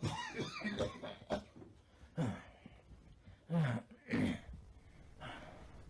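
A man coughing and gasping for breath: a quick cluster of coughs, then three more separate coughs spread out, the kind of hacking, wheezy cough that precedes asthma.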